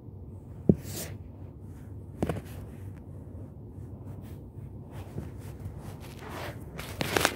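Blankets rustling and a phone being handled under them, with a sharp knock about a second in and a few more knocks and scuffs near the end, over a low steady hum.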